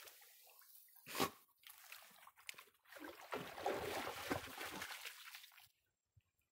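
A dog swimming in a small pond after jumping in: the water of its plunge settles at first, then a short splash about a second in, and irregular sloshing and splashing as it paddles, which stops suddenly near the end.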